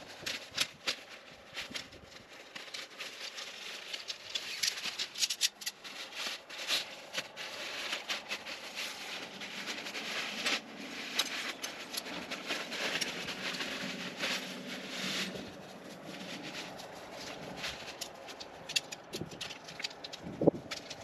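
Irregular light taps and clicks over a steady rustling hiss: handling noise.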